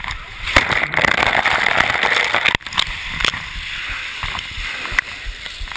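Ice water sloshing and splashing as people wade through a tub packed with ice cubes, heard from a camera at the water's surface. The churning is loudest at first and eases suddenly about two and a half seconds in.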